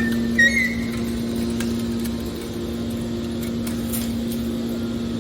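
Scrap steel wire baler's hydraulic power unit running with a steady hum. A brief high metallic squeal comes about half a second in, and there are a few light clicks.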